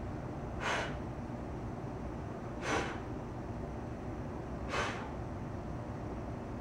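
A woman breathing out in three short puffs about two seconds apart, one exhale with each lift of the dumbbells in a rear delt fly, over a low steady room hum.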